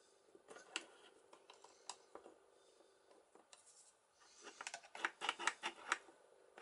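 Faint small metal clicks and scrapes from the parts of an opened boat cabin lock being worked by hand with a screwdriver in its square follower, with a denser run of quick clicks in the second half.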